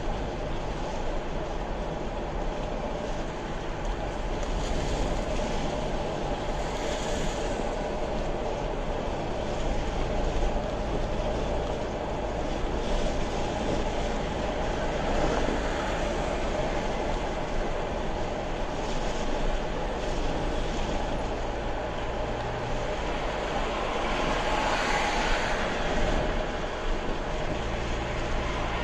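Road noise inside a car cruising on a highway: a steady rumble of engine and tyres with a low drone, the hiss swelling briefly a few times.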